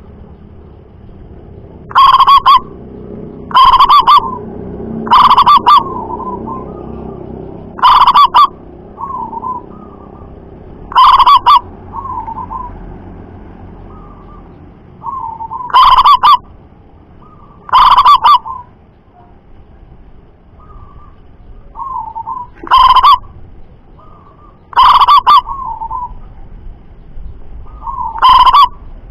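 Zebra doves (perkutut) cooing: about ten loud, short calls spaced two to three seconds apart, so loud they distort, with softer coos in between.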